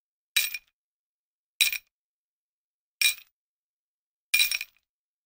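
Four short, bright clinking sound effects, each ringing briefly, spaced evenly a little over a second apart.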